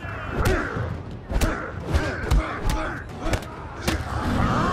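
Movie fight sound effects: about seven sharp punch and body-blow impacts at irregular intervals, with fighters' grunts and shouts between them.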